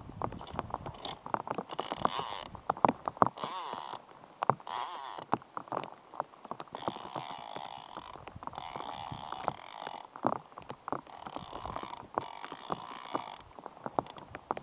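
Fly reel's click-and-pawl drag buzzing in about seven bursts of half a second to a second and a half each, as line goes on or off the reel while a hooked Atlantic salmon is played on a bent rod.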